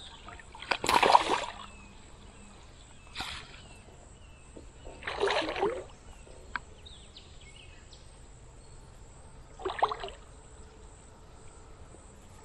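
Hooked carp splashing at the water's surface while being played to the landing net: four separate bursts of splashing, the loudest about a second in, the others around three, five and ten seconds in.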